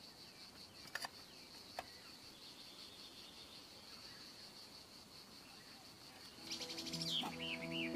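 Faint forest ambience: a steady high insect drone with two soft clicks. Near the end a bird calls, a quick rattling trill followed by a few looping warbled notes, as soft background music with held notes comes in.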